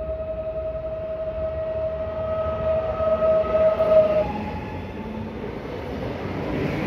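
A steady high tone that cuts off about four seconds in, then the rising rumble of a PESA Dart ED161 electric multiple unit approaching along the track.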